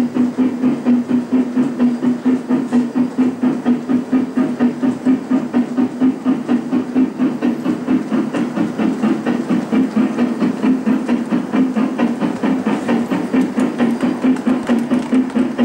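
Gauge 1 model locomotive running, its sound unit giving a steady rhythmic engine beat of about three to four pulses a second.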